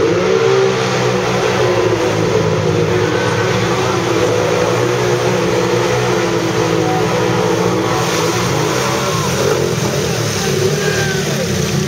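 Two ATV engines revving high under heavy load as the quads churn side by side through a deep mud pit, running without a break and shifting in pitch now and then.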